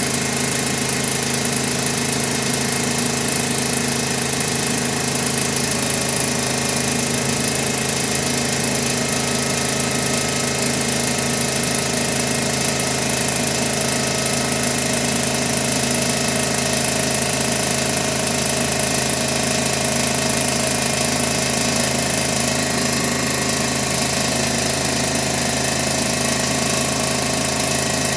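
Piston air compressor running steadily under load, pumping up tank pressure toward its 175 psi cutoff.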